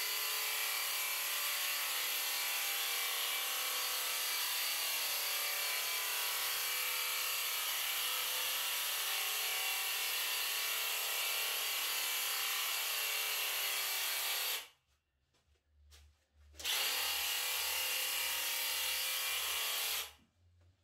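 Graco Ultra cordless handheld airless paint sprayer running steadily while spraying. It cuts out for about two seconds about three-quarters of the way through, and again just before the end.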